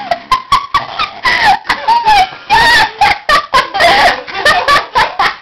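Rapid high-pitched squeals and squeaks with rising and falling pitch, mixed with many sharp clicks and knocks.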